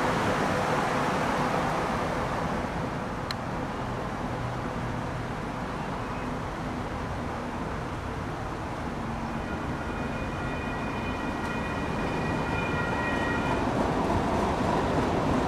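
Steady traffic and wind noise at a railroad crossing as a Sacramento light rail train approaches and runs into the crossing, growing louder near the end. A faint, steady high chord of tones sounds for about four seconds shortly before the train arrives.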